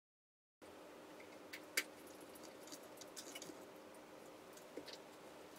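Faint, scattered small clicks and ticks of a precision screwdriver turning screws into the plastic underside of a Logitech G703 mouse, with one sharper click about two seconds in. The first half second is silent.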